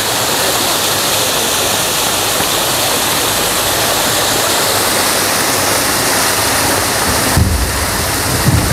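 Fast water pouring and rushing through a concrete flow-through carp pond, a loud, steady rush. Near the end, low buffeting on the microphone joins it.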